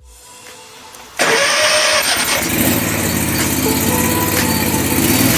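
Wright stander mower engine started: the starter cranks briefly about a second in, then the engine catches and runs steadily.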